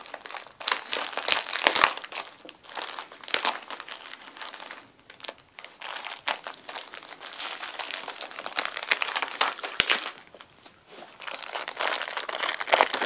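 Christmas wrapping paper crinkling and rustling in irregular bursts as a West Highland white terrier paws and bites at a small wrapped present, trying to get it open, with short lulls in between.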